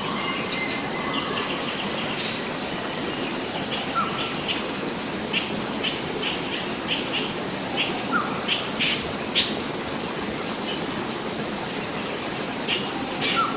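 Wild birds chirping in a series of short, quick notes, with a few higher calls, over a steady background hiss and a constant high buzz.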